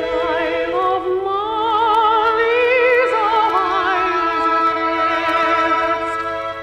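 Music: a woman singing a slow melody in a trained, operatic style with wide vibrato, over sustained orchestral accompaniment.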